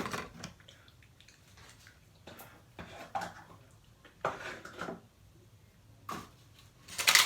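A bowl and utensils being handled on a table: several separate clatters and scrapes, with the loudest cluster near the end.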